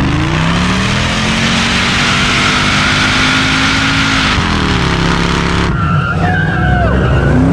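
A car doing a burnout. Its engine revs up and holds high while the spinning rear tyres screech continuously. About four seconds in the revs drop, and near the end the tyres give short, separate squeals as the engine revs again.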